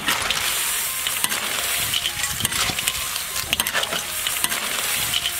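Clams, chicken pieces and green peppers sizzling in a hot iron wok while a metal ladle stir-fries them, with a steady hiss and frequent sharp clicks from the stirring.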